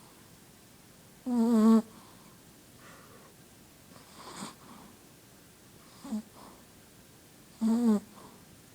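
Shih Tzu snoring in its sleep: two loud, high-pitched, wavering snores about half a second long, with softer, shorter breaths between them.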